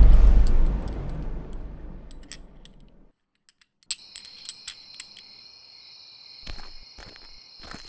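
A deep cinematic boom hit that dies away over the first three seconds, then a moment of silence. After that, crickets trill steadily, with a few light clinks and knocks.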